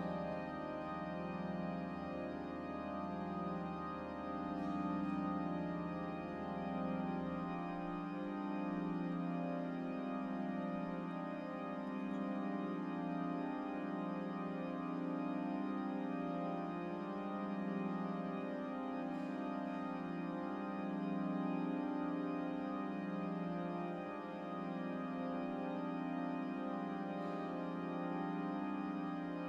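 William Hill and Son pipe organ (the Sydney Town Hall Grand Organ) holding a dense, sustained cluster of many steady pipe tones that waver slowly. A low pedal note drops out about seven and a half seconds in while the rest of the chord sustains.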